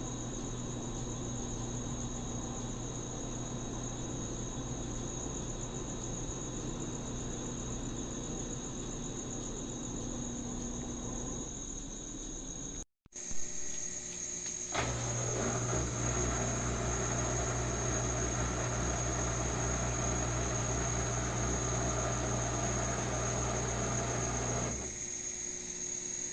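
Washing machine running with a steady low hum and a high thin whine. After a short break, a washing machine motor runs louder for about ten seconds and then stops abruptly.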